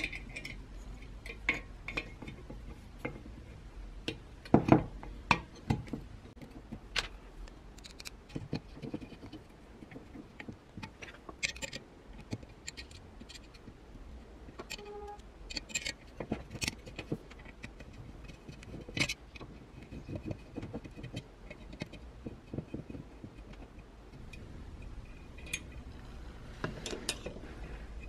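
Irregular small metal clicks, taps and scrapes as a wooden handle is fitted onto a chrome-plated iron's metal bracket and its screws are turned with a screwdriver, the loudest knocks about four to five seconds in.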